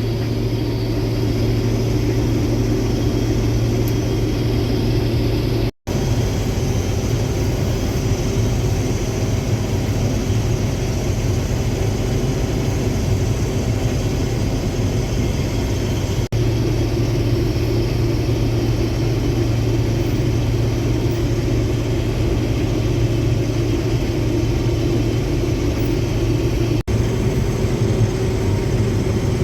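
Combine harvester running steadily while cutting soybeans, heard from inside the cab: a constant engine and machinery drone with a strong low hum. It drops out briefly three times.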